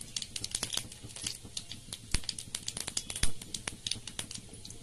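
Mustard seeds spluttering and popping in hot oil for a tempering: an irregular run of sharp crackling clicks, with a louder pop about three seconds in.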